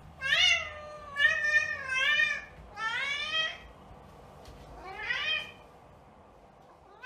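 A long-haired house cat meowing: four meows in quick succession, then a fifth, rising in pitch, after a short pause.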